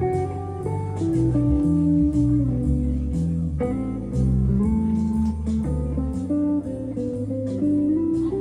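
Guitar music: a picked melody over a bass line that changes note about every half second.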